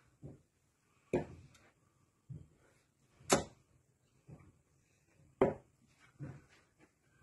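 Three darts striking a Winmau Blade 5 bristle dartboard, each a sharp thud, about two seconds apart, with fainter knocks in between.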